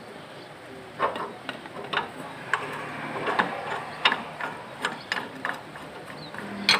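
Irregular sharp clicks and knocks from hands turning and fitting a spin-on diesel fuel filter canister by hand, about a dozen spread unevenly from about a second in.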